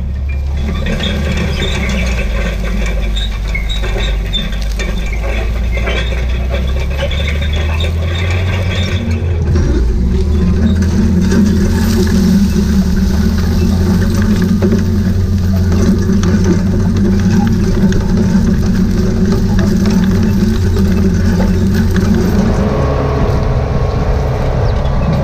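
Tillage implement's discs, shanks and harrow chains dragging through soil and corn-stalk residue behind a tractor: a steady low drone with metal scraping and clatter. A thin high squeal is heard for the first nine seconds or so, then the drone grows louder.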